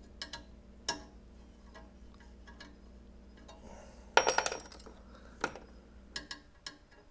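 Small metal hand tools clinking and rattling as they are handled and picked through, with scattered clicks and a loud ringing jangle about four seconds in.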